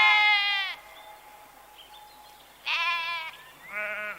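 Bleating: one loud drawn-out bleat at the start, then two shorter bleats about three and four seconds in.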